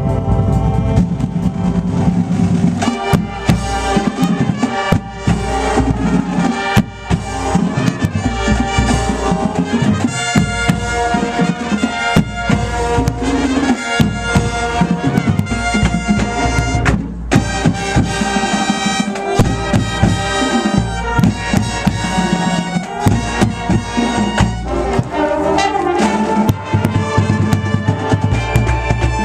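High school marching band playing: brass with drums keeping a steady beat.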